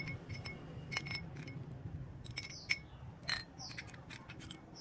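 Metal tweezers clinking and tapping against a drinking glass while a small watch part is moved about in cleaning liquid. The result is a scatter of light, short clinks, each with a brief glassy ring.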